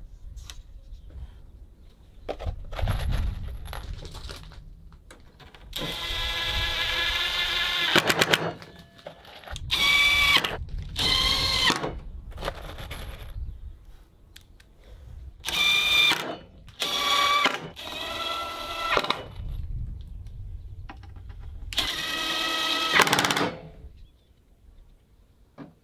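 Cordless drill driving screws into timber formwork boards in about seven separate runs of one to two seconds each, the motor whining at a steady pitch while it spins. Short knocks and handling clatter fall between the runs.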